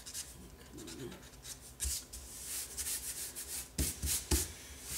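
Fingers rubbing dried masking fluid off watercolour paper: a run of quick, scratchy rubbing strokes, with a few sharper knocks, the loudest near the end.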